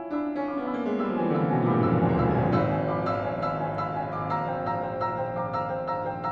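Steinway grand piano played four hands in a contemporary piece: a fast descending run sweeps down into the deep bass over the first couple of seconds, then a quick stream of separately struck notes and chords in the middle and upper range.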